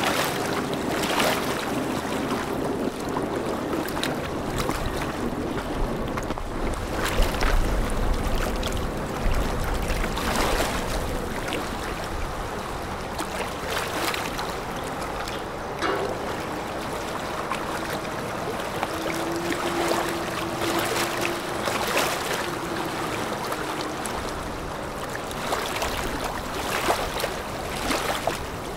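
Riverside ambience: a steady wash of water with gusts of wind on the microphone, and a faint engine hum from passing vessels.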